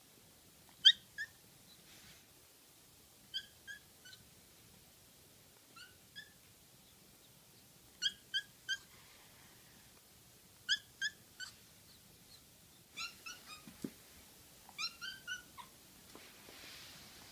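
American Shorthair kitten crying in short, high-pitched "kya, kya, kya" mews, in bursts of two or three about every two to three seconds.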